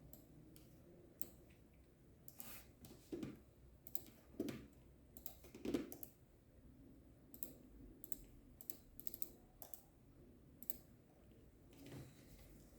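Scattered light clicks and taps at an uneven pace, with three duller, louder knocks a few seconds in.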